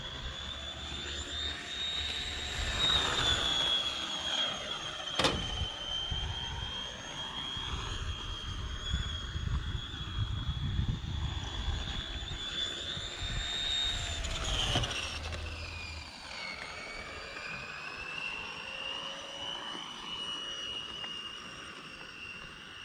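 Scratch-built radio-controlled oval car running laps: a high, steady whine that wavers in pitch, drops sharply about fifteen seconds in and then climbs back. A low rumble runs under it through the first part, and there is one sharp click about five seconds in.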